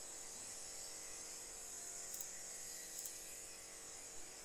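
Faint steady background hiss and buzz with a low hum, and a few soft mouse clicks.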